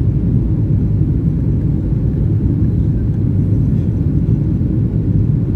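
Steady low rumble inside the cabin of a Boeing 737-800 airliner on approach to landing, flaps extended: the CFM56-7B turbofan engines and the airflow heard from a window seat over the wing.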